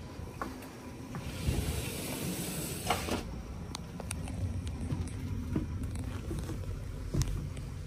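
Low rumble with a burst of hiss near the start and a few light knocks and footsteps: handling noise from a handheld camera carried down a companionway into a boat cabin.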